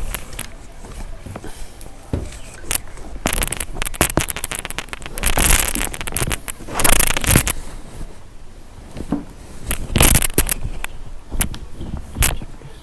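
Irregular crackling and scraping noise on the microphone: a string of short bursts and sharp clicks, the longest about half a second, the loudest near the middle of the stretch and again toward the end.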